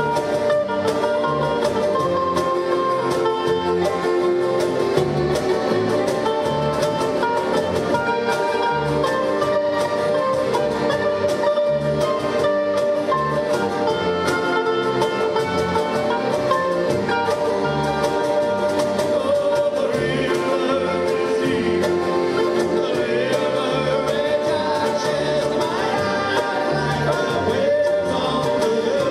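Live acoustic band playing: accordion, mandolin and acoustic guitar over a steady cajon beat, with singing in the later part.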